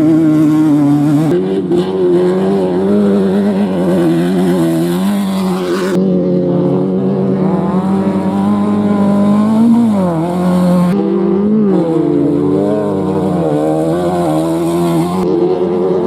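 Off-road race vehicle engines running and revving, the pitch rising and falling constantly, in short clips cut together so the sound changes abruptly about every four to five seconds.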